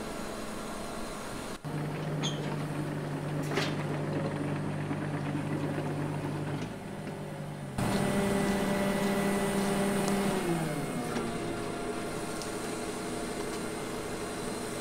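Diesel engine of heavy construction plant running at a steady speed. The sound changes abruptly twice, and about ten and a half seconds in the engine note slides lower as the engine slows.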